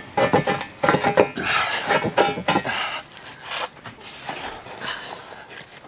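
Stone and mortar fragments knocking, clinking and scraping against a steel girder as loose stone is worked out of the wall by hand. It is a busy run of sharp clinks and knocks in the first three seconds, then fewer.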